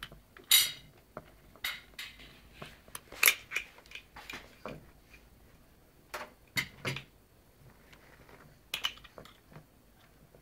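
High chair seat belt buckle clicking and clacking irregularly as a toddler fumbles its two halves together, trying to fasten it.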